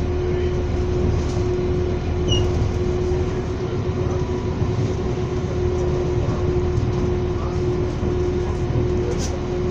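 Passenger train running along the line, heard from inside the carriage: a steady rolling rumble with a constant hum over it and a brief click near the end.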